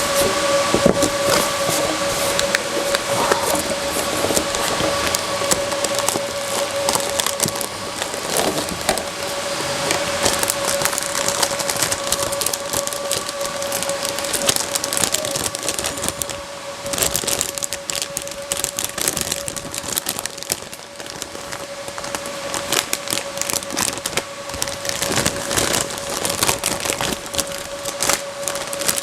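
Irregular crackling, rustling and clicking of hardware and packaging being handled, over a steady high-pitched hum.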